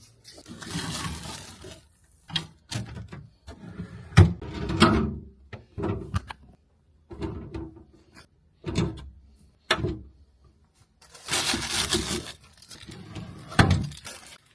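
Groceries being unpacked: bags rustling in two longer stretches, near the start and about eleven seconds in, between a string of knocks and thunks as items are set down.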